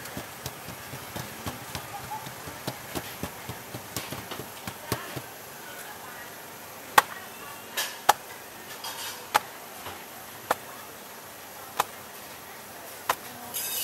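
Thai roti pancake dough being patted and pressed flat on a stainless-steel counter with light, quick taps, then slapped down onto the steel in sharp smacks about once every second and a quarter as it is stretched thin.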